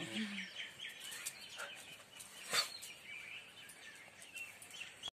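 Birds chirping faintly in the background, with a dog giving one short, sharp bark about two and a half seconds in.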